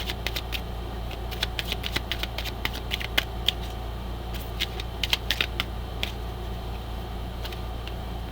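A deck of oracle cards being shuffled and handled: irregular sharp clicks and snaps in small clusters, over a steady low hum.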